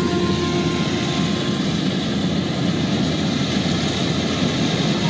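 Combine harvester running steadily while it cuts ripe rice, a continuous engine sound with no breaks.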